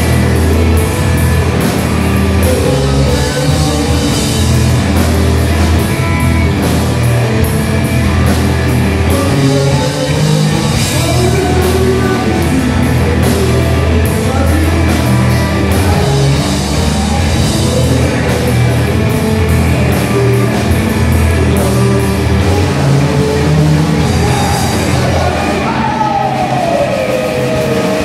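Rock band playing live and loud: a drum kit, electric bass and electric guitar, with a singer's voice at times. A note slides down in pitch near the end.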